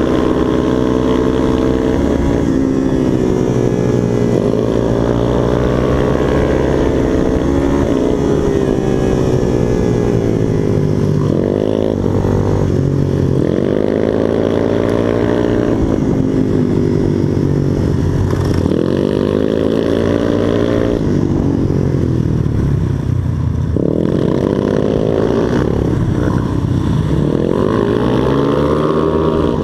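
Supermoto motorcycle engine under hard track riding: the revs climb in repeated sweeps as it accelerates between corners, then drop away before the next turn, over and over.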